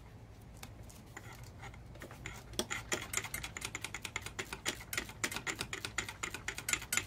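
Hand ratchet clicking fast and evenly, about nine clicks a second from about two seconds in, as it runs out a 14 mm alternator mounting bolt that has been cracked loose. A few faint clicks come before the run starts.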